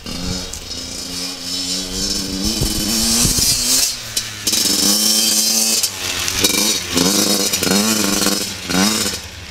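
Yamaha YZ motocross bike engine revving hard as it is ridden, its pitch rising and falling with the throttle. It gets louder over the first few seconds, and near the end there is a run of quick rising revs.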